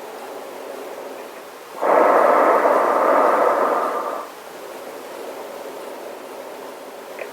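Breathing through a gas mask: one long, loud rush of breath through the mask about two seconds in, lasting a little over two seconds, with a faint steady hiss before and after it.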